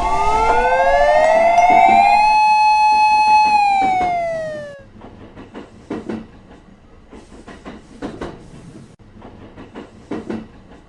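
A horn-like electronic tone with several overtones slides up for about two seconds, holds, then slides back down and fades about five seconds in. Under its start is a warbling two-note beeping that stops about two seconds in. After that there are only faint scattered knocks.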